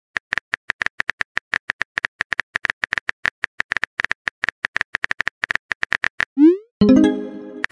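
Texting-app sound effects: rapid keyboard typing clicks, about seven a second, for some six seconds. Then a short rising swoop and a bright, ringing chime as the text message is delivered.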